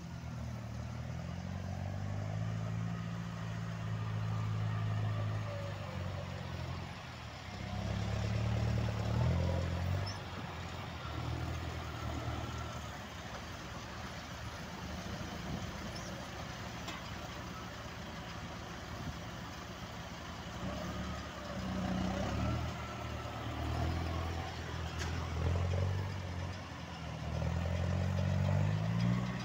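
Massey Ferguson 5455 tractor's diesel engine running under work, its engine speed rising and falling several times as the load changes.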